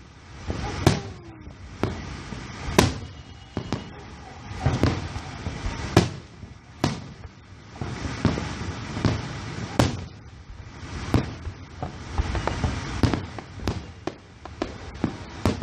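Fireworks display: aerial shells bursting one after another, sharp bangs about every half second to a second, each trailed by a rumble of echo.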